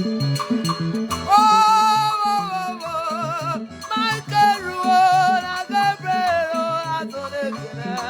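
Upbeat worship music with a steady, repeating bass-and-drum groove and a lead melody of held, wavering notes that enters about a second in.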